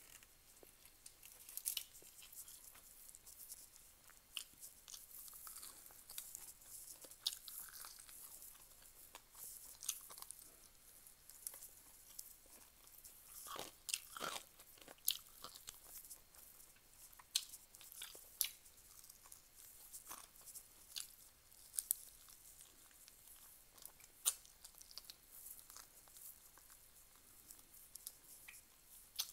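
A person chewing and biting food while eating rice with her fingers, close up. There are many short, sharp mouth clicks, with a busier spell around the middle.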